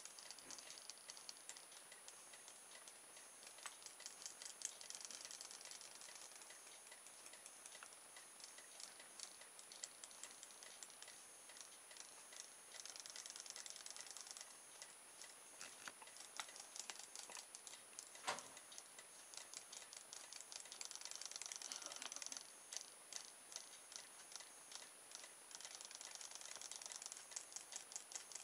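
Battery-powered RoboFish toy swimming in a fishbowl, its small motor and tail mechanism making faint rapid ticking and rattling in runs with short pauses. One sharper knock stands out past the middle.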